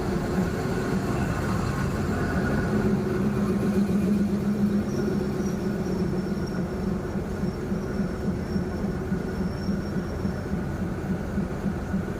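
Train running along the track: a steady rumble with a low drone, and a faint high whine in the middle.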